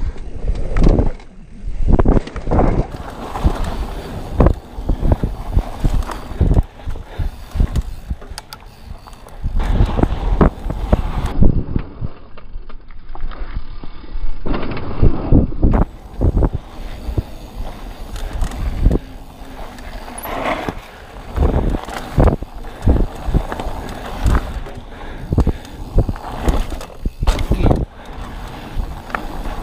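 2021 Polygon Siskiu T7 full-suspension mountain bike descending a dirt and gravel trail: tyres rumbling over the ground, with frequent irregular knocks and rattles as it hits bumps.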